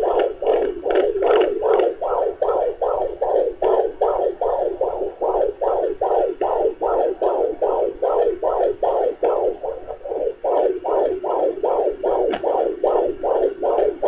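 Pocket fetal doppler's speaker playing the heartbeat of an 18-week fetus: steady whooshing pulses at about two beats a second, matching the display's reading of about 121 to 133 beats per minute.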